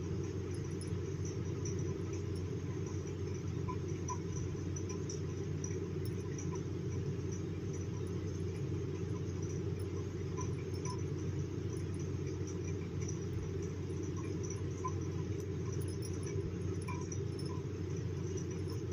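Steady low rumbling background noise, even throughout, with faint scattered ticks.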